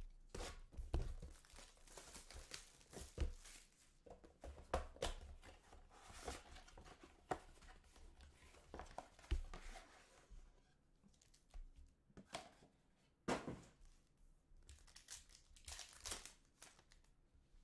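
Cellophane shrink wrap crinkling and tearing as it is stripped off a box of trading cards, with dense crackling for the first several seconds. After that come sparser bursts of crinkling from the foil card packs as one is torn open.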